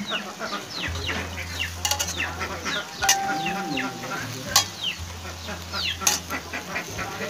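Metal spatula scraping and knocking against a wok while water spinach and meat sizzle in the pan, with a sharp clack every second or so. Birds chirp over it.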